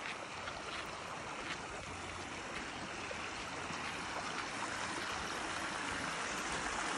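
Small stream of water running and trickling over rocks, a steady rush that grows gradually louder.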